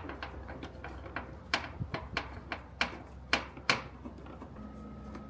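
Sharp clicks and taps of a T30 Torx bit and tool working the screws on top of a plastic engine air-intake cover, about six in a little over two seconds. Near the end a steady hum with a thin even tone starts and holds.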